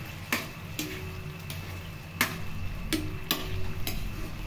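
A spatula clinking and knocking against a frying pan as sardines, garlic and onion are stirred in it, about six sharp, irregular clacks, some ringing briefly, over a faint sizzle.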